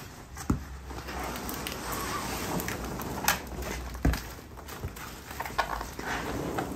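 Cardboard shipping box and its packing being torn open and rummaged through: steady rustling and crackling, broken by several sharp knocks.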